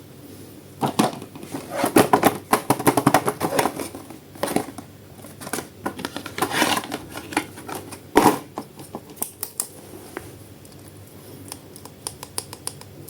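Plastic toy packaging being handled and opened by hand, in bursts of quick clicks and crinkles that thin out in the last few seconds.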